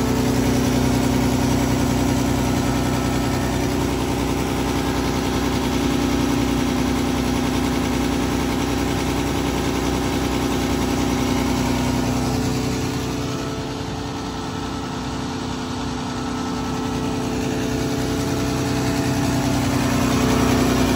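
Hydraulically driven product pump on a tanker trailer running steadily while offloading liquid product, a loud machine drone that eases off a little about two-thirds of the way through and then comes back.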